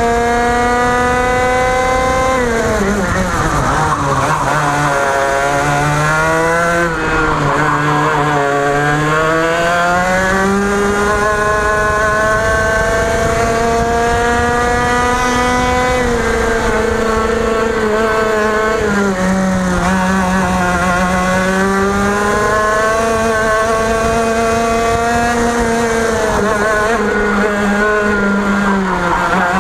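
Onboard sound of a TaG Restricted kart's 125cc two-stroke engine at racing speed. The engine note climbs steadily on the straights and drops sharply as the driver lifts for corners, about two seconds in, around nineteen seconds and near the end, then climbs again.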